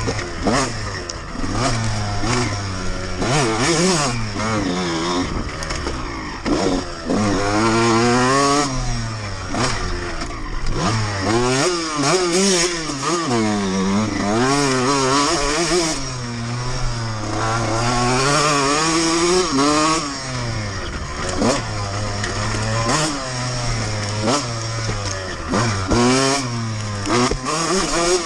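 2002 Honda CR125R's 125 cc single-cylinder two-stroke engine revving up and down again and again as the dirt bike is ridden hard along a trail, with brief knocks from the bike here and there.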